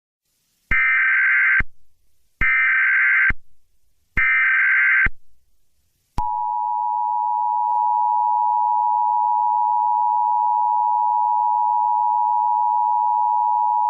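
Emergency Alert System tones: three bursts of SAME header data, each about a second long with short gaps between them. About six seconds in, the steady two-tone EAS attention signal starts and keeps sounding.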